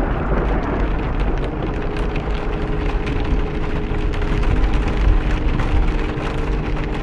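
Loud storm noise: rain and a low wind rumble on the microphone, with faint steady tones starting about two seconds in.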